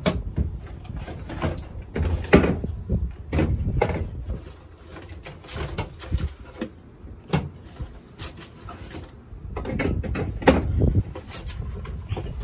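Cans and plastic bottles knocking and clattering against the shelves of an open refrigerator as they are stacked inside, in irregular clunks and rattles.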